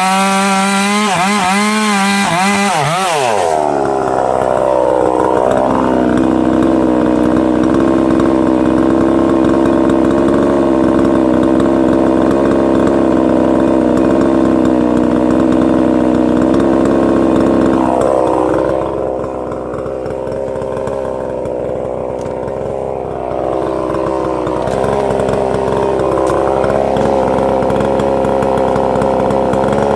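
Husqvarna 262XP two-stroke chainsaw running at full throttle through a big ash log: the pitch wavers high at first, then drops about three and a half seconds in to a lower, steadier note as the chain bites and the engine works under load, with a dip and recovery in pitch later on as the load changes.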